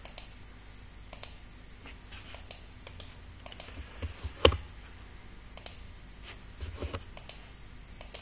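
Irregular clicks of a computer mouse and keyboard being worked, a few to several per second in loose clusters, with one heavier knock about four and a half seconds in.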